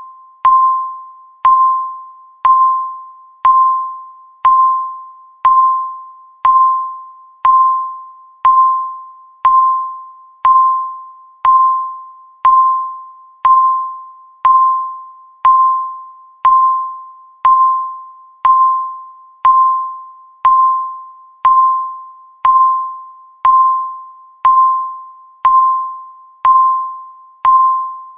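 Countdown timer's tick sound: a single high electronic ding struck once every second, each one sharp at the start and dying away before the next.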